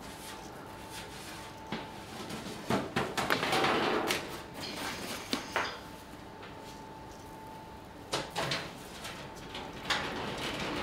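Clatter of bakery work: irregular knocks, bumps and scraping, busiest about three to four seconds in, over a faint steady hum.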